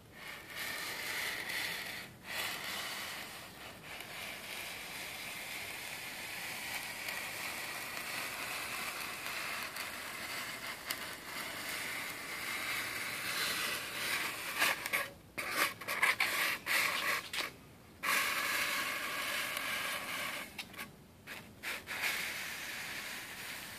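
Polystyrene foam slab sliding and scraping across the cutter's board as it is fed through the hot wire: a steady rubbing hiss, broken by a few short pauses in the second half.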